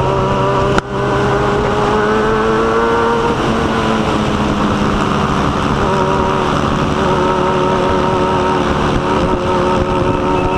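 Motorcycle engine running at a steady cruise while riding, over dense wind and road noise; the engine pitch rises a little in the first few seconds and then holds. A brief break about a second in.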